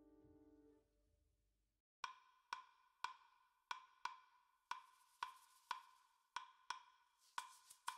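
Background music: a held chord fades out in the first second, and after a short pause a wood-block percussion pattern starts, ticking about twice a second.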